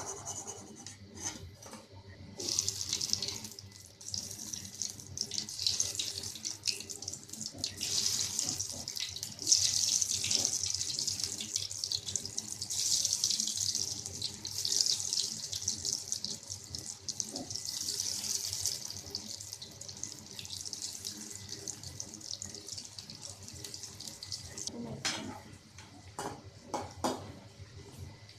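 Battered snake gourd pieces deep-frying in hot oil: a steady, crackling sizzle that starts about two seconds in and dies down near the end, with a few knocks at the finish.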